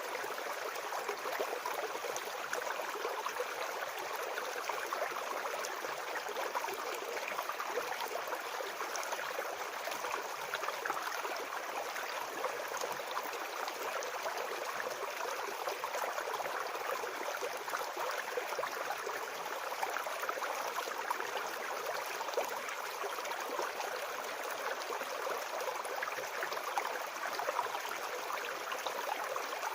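A shallow forest brook flowing and babbling over stones, a steady splashing water noise with constant small gurgles and no pauses.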